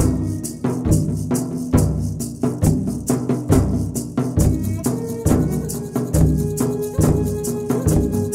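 Background music with a steady beat: a low drum a little faster than once a second and a rattling shaker over sustained notes.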